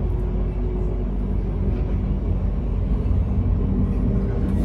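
Passenger train running, heard from aboard: a steady low rumble with a faint steady hum.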